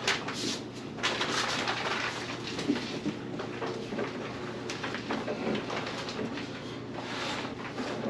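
Rustling and scraping of a padded insulated carrying bag as a portable chest fridge is lowered and worked down into it, with small knocks of the fridge's plastic case against the bag and stand.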